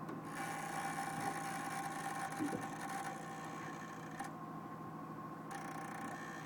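ProMariner marine battery charger making an abnormal electrical hum and whine, several steady tones at once. A higher hissing buzz over it cuts out about four seconds in and comes back about a second later.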